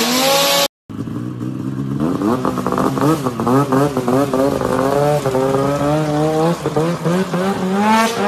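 Polaris Assault snowmobile on a wheel kit, its two-stroke engine revving up and down over and over as it is ridden on pavement, climbing in pitch near the end. It opens with a moment of another loud, high-revving engine that cuts off abruptly.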